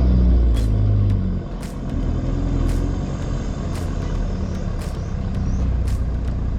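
Four-wheel-drive vehicle being driven: engine note drops in pitch over the first second and a half as it eases off, then settles to a steady low rumble. A sharp tick repeats about once a second throughout.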